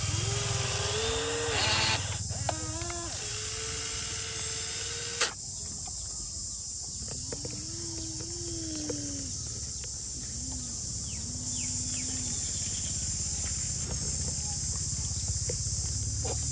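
Toy radio-controlled excavator's small electric gear motors whining in starts and stops, the pitch sliding up and down as the arm and tracks work, with one sharp click about five seconds in.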